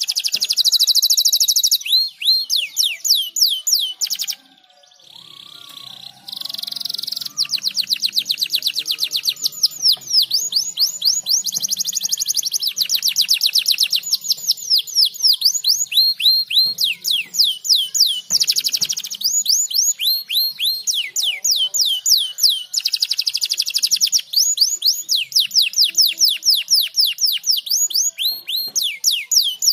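Domestic canary singing: long, high-pitched trills of rapidly repeated, quickly falling notes, broken by a short lull about five seconds in.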